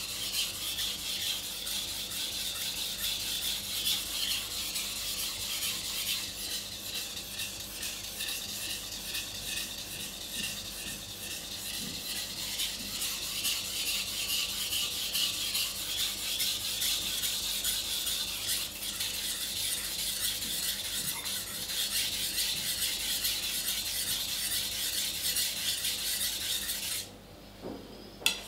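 Steel blade of a Global kitchen knife scraping steadily across a sharpening stone as it is worked back and forth by hand. The scraping stops about a second before the end, followed by a single sharp tap.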